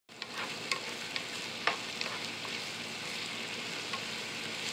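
Chopped onions sizzling as they fry in a non-stick frying pan, stirred with a plastic spatula that scrapes and clicks against the pan about every half second.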